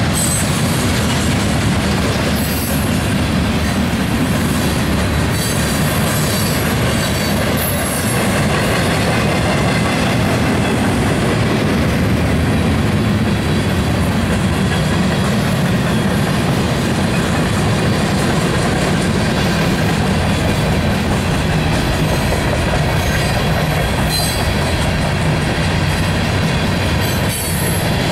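Freight cars of a mixed freight train (covered hoppers and tank cars) rolling past close by. Steel wheels on rail make a loud, steady rumble and rattle, with occasional sharper clicks.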